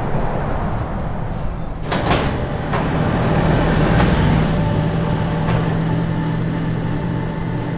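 A large sliding door opening: a heavy clunk about two seconds in, then a steady mechanical hum over a low rumble, with lighter knocks along the way.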